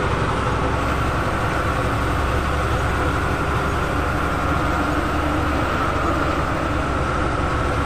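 Bus engine and road noise heard from inside the cabin while driving: a steady low rumble with a faint, even whine above it.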